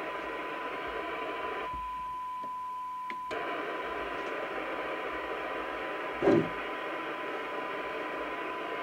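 A CB receiver's loudspeaker gives out hiss with a steady 1 kHz test tone in it: the radio is picking up a weak tone-modulated test signal near its sensitivity limit during receive alignment. The hiss drops away for about a second and a half, about two seconds in, while the tone carries on. A short thump comes about six seconds in.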